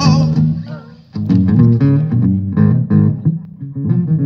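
Two acoustic guitars played live through a PA system, strummed chords over a low bass line; the playing drops away briefly just under a second in, then picks up again.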